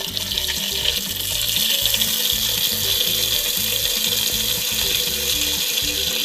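Tap water pouring steadily from a faucet into a metal pressure cooker pot with chunks of pork in it, over background music with repeating low notes.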